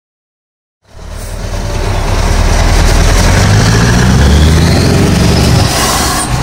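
Scania R500 V8 truck engine running through an open exhaust pipe, cutting in abruptly about a second in and quickly growing loud, its deep note climbing slightly in pitch as the revs build.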